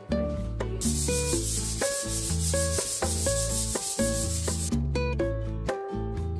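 A hand sanding block scrubbed rapidly back and forth over a dried plaster coat on a wall, a hissing scratch that starts just under a second in and stops after about four seconds. Background music plays throughout.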